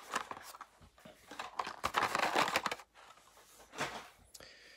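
Blister-packed Hot Wheels cards and cardboard packaging rustling and crinkling as they are handled, in short irregular bursts, the longest about two seconds in.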